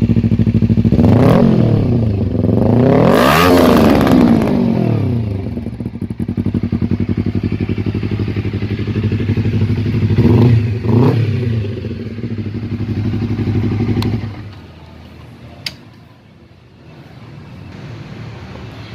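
Honda CBR250RR motorcycle engine idling and being revved: a short blip about a second in, a bigger rev a couple of seconds later, then two quick blips. Near the end the engine cuts off, leaving a low background with one sharp click.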